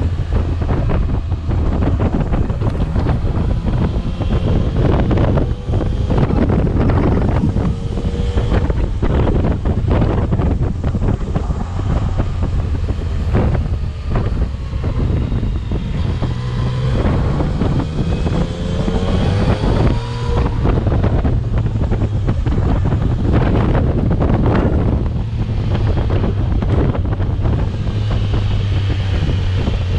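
Yamaha Tracer 900's inline three-cylinder engine running under way, its pitch rising and falling with the throttle through the bends, with wind buffeting the microphone.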